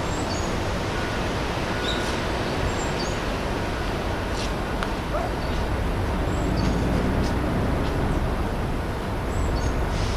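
Steady outdoor background noise with a few short, high chirps and occasional faint clicks.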